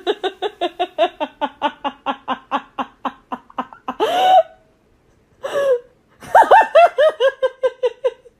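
A person laughing hard. A fast run of laughing pulses, about six a second, fades over several seconds, then a rising cry about four seconds in, then another burst of laughter near the end.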